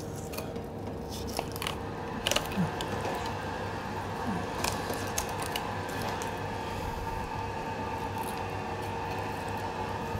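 Filleting knife slicing along the rib bones of a gilthead sea bream, the blade cracking through the small bones in scattered clicks and crunches, over a steady hum.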